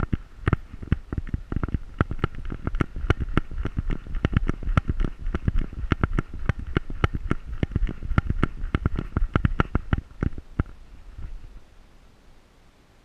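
Rapid clicking and rattling, about four or five a second, from the camera mount and collar on a moving Pointer, with low rumbling beneath; it thins out and stops about ten and a half seconds in.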